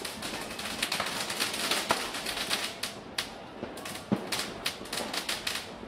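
Firecrackers and fireworks going off across a city, a dense irregular crackle of sharp pops with a few heavier bangs, one about four seconds in.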